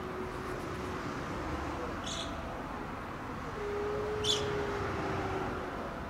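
Outdoor ambience with a steady hum of distant traffic and a few short, high bird chirps about two seconds apart. A low, steady held tone sounds for about two seconds in the middle.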